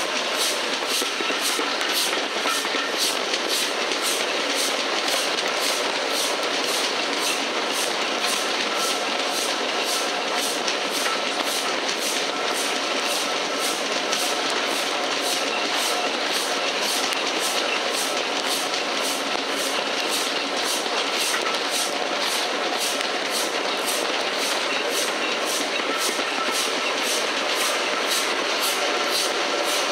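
Steam-hauled passenger train on the move, heard from an open carriage window: a steady rushing rumble of wheels on track, with a regular beat about twice a second. The train is hauled by LMS Black Five 4-6-0 No. 45428.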